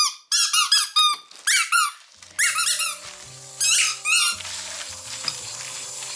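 Squeaky rubber pumpkin toys being squeezed: quick, high squeaks in several bunches, mostly in the first two seconds, then two more bunches. Background music with steady held notes.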